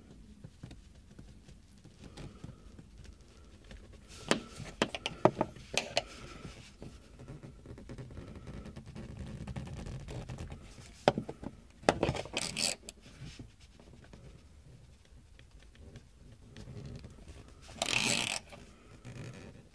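Braided fishing line being pulled through windshield urethane with a socket extension as a handle: scattered short scrapes and clicks as the line saws through the glue and the tool shifts in hand, with one louder, longer scrape near the end.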